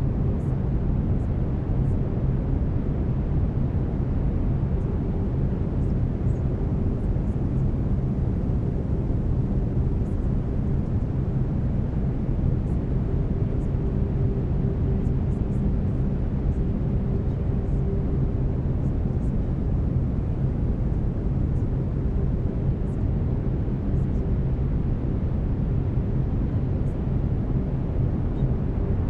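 Brown noise: a steady, deep rushing hiss with most of its weight in the bass, mixed with faint unchanging hum tones from binaural-beat delta waves.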